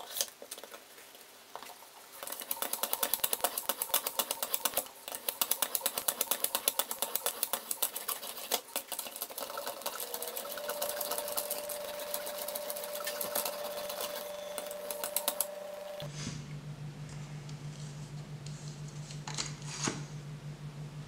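Fine-grit sharpening stone on a guided-rod knife sharpener rubbed quickly back and forth along a steel knife edge, a fast run of scraping strokes at about four a second. About three quarters of the way through the strokes stop and a steady low hum takes over.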